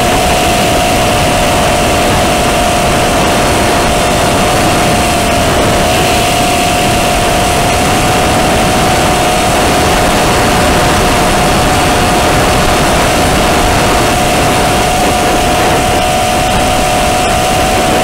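FPV drone's electric motors and propellers running at a steady throttle: a single whine held at nearly one pitch over loud rushing noise.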